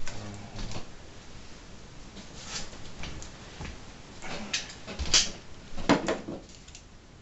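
Knife scraping and slitting tape on a polystyrene foam shipping box, with scattered scrapes and clicks of handling and two sharp knocks about five and six seconds in.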